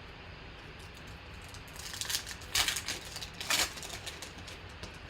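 Trading-card pack wrapper being torn open and handled: a few short crinkles about two and three and a half seconds in, over a faint steady hiss.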